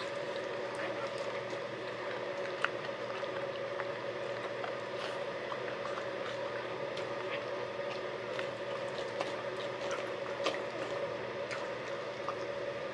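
Wet licking and squelching as a mother dog cleans her newborn puppies, with scattered small clicks, over a steady hum.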